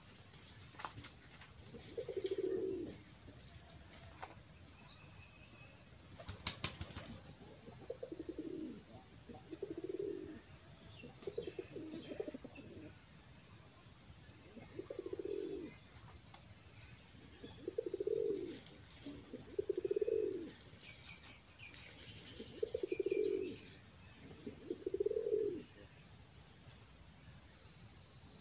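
A dove cooing repeatedly, short low coos every second or two, over a steady high-pitched insect drone. A single sharp click comes about six seconds in.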